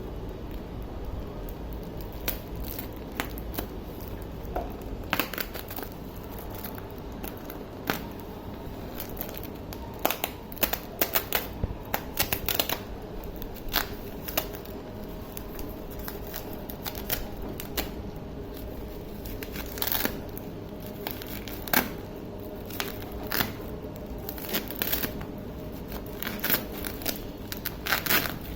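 Packaging and contents of a boxed action camera being handled and unwrapped: scattered short clicks and rustles, busiest about ten seconds in and again over the last third, over a steady low background hum.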